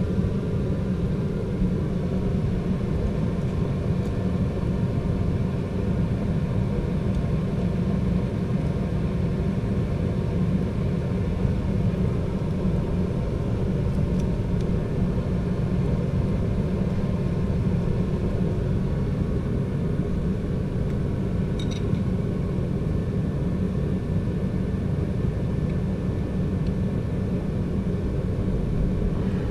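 Steady low rumble of workshop background noise, unchanging throughout, with a couple of faint light clicks near the middle.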